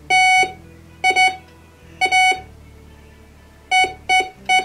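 GTX 4030 metal detector beeping as its metal shaft is passed over the search coil: six short beeps at one pitch, coming closer together near the end.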